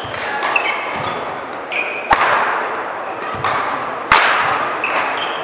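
Badminton rally: two sharp racket strikes on the shuttlecock about two seconds apart, echoing in the hall, with short squeaks of court shoes and lighter footfalls between.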